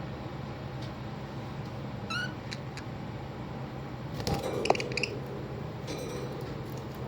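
Pet birds chirping: a short wavering chirp about two seconds in, then a brief cluster of chirps with a sharp click a little after four seconds, over a steady low hum.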